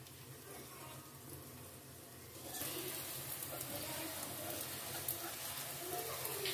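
Laccha paratha frying on a flat griddle (tawa): a steady sizzle that grows clearly louder about two and a half seconds in.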